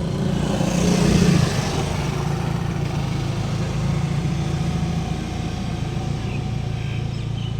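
Road traffic: a steady low engine hum that swells about a second in as a vehicle passes, then settles back.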